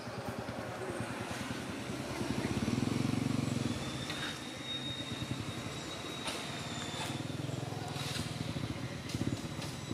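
An engine running steadily, a little louder about two and a half to three and a half seconds in. A thin, steady high tone joins about four seconds in, with a few faint clicks.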